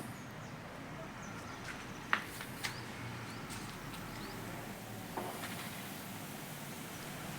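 A few sharp knocks or taps, two close together about two seconds in and a softer one about five seconds in, over a low steady background noise.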